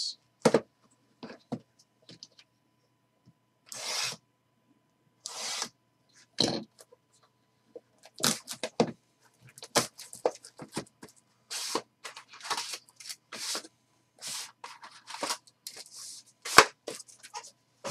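Hands handling trading cards, a foil card pack and a cardboard card box: a run of short rustles, scrapes and taps, busier in the second half, with one sharp tap about a second before the end.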